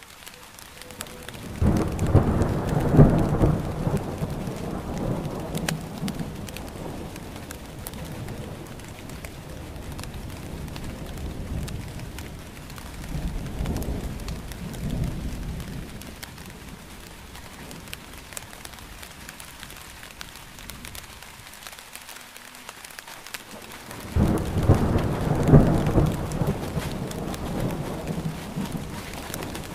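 Thunderstorm: steady rain falling, with rolls of thunder over it. A loud rumble starts about two seconds in and fades over several seconds, a softer one comes around the middle, and another loud one starts suddenly near the end.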